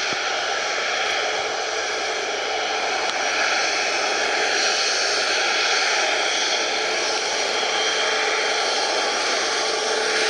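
Jet airliner's engines running, a steady rushing noise with faint whining tones that swells slightly in the middle.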